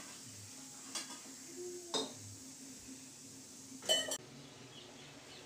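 Stainless steel kitchenware clinking: three short metallic clinks about a second apart, the last one the loudest and ringing briefly, as steel cups, bowls and a pot are handled.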